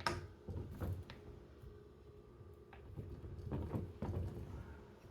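Clicks and knocks of metal handling as a golf iron is set and clamped in a loft-and-lie bending machine: a sharp knock at the start, a few lighter clicks, then a short rattling clatter a little past the middle.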